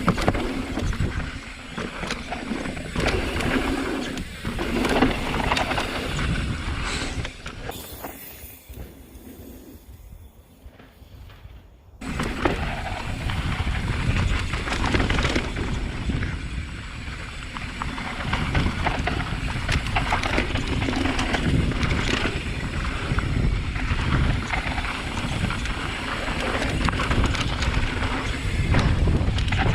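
Mountain bike riding down a loose, dry dirt trail: tyres on dirt, the bike rattling over bumps and wind on the microphone. The noise drops away about eight seconds in and comes back suddenly some four seconds later.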